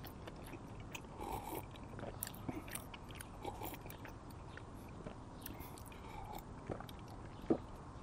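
Person gulping water from a cup, close to the microphone: a series of soft swallows and small mouth clicks about once a second, with one sharper, louder one about seven and a half seconds in.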